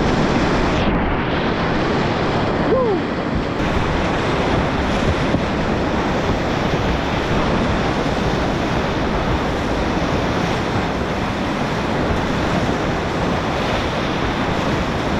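Steady, loud rush of a high-water whitewater river, a continuous noise with no let-up. About three seconds in there is a brief short falling tone.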